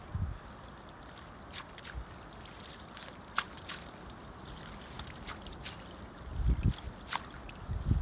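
Wet fishing net being hauled by hand out of a hole in lake ice: water dripping and sloshing back into the hole, with scattered small clicks. A low rumble swells about six and a half seconds in.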